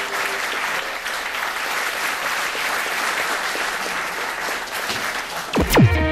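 Audience applauding steadily. Near the end a single sound sweeps sharply down in pitch.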